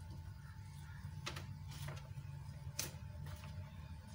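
A few soft taps and light paper rustles as thin raw besan papdi dough rounds are laid overlapping on a sheet of paper, over a steady low hum.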